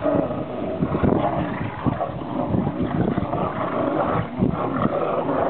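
Dogs play-growling as they tug together at a toy, growling without a break.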